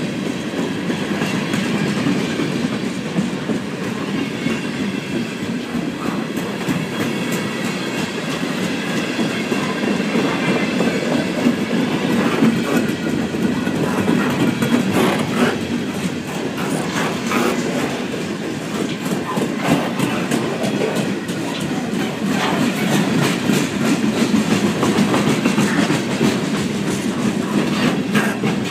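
A long freight train of boxcars and centerbeam lumber flatcars rolling past close by: a steady rumble of steel wheels on rail, with scattered sharp clicks and clatter as the wheels pass over rail joints.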